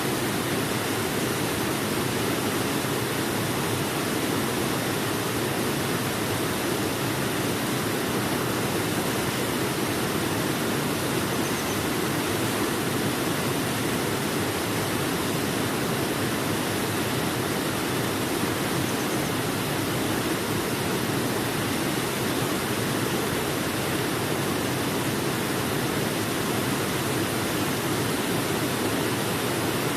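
Waterfall: falling water making a steady, even noise that does not change.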